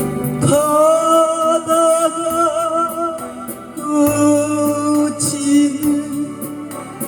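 Music: a singer holding two long notes with vibrato over a backing accompaniment, the second lower than the first.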